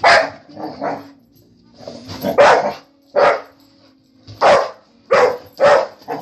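Pet dog barking repeatedly: about eight sharp barks in irregular bunches, with a pause of about a second a little way in.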